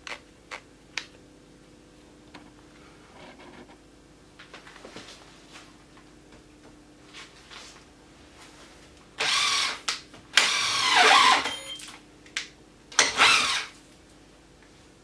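Festool TI 15 cordless drill with a long auger bit fitted, its motor run in four short bursts on the trigger, the longest about a second and a half with the pitch falling as it slows. A few light clicks come from handling the drill and bit in the first second.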